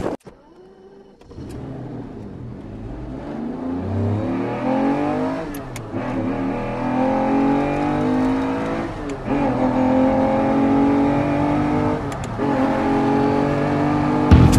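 An engine revving up, its pitch climbing in stages with short breaks between, like a vehicle accelerating through the gears.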